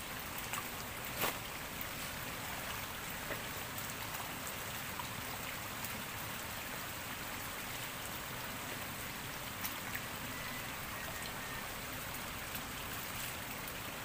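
Shallow stream running steadily, an even hiss of water, with a few scattered sharp ticks, the loudest about a second in.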